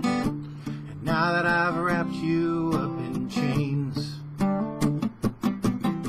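Acoustic guitar strummed with a steady rhythm while a man sings along, holding a wavering note about a second in.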